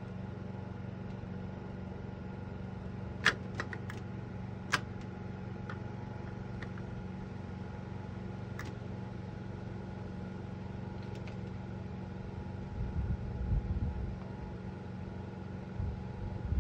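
Steady hum of a Dixie Narco 501e vending machine running, with a few light clicks of its selection buttons being pressed about three to five seconds in. Uneven low rumbling comes in twice in the second half.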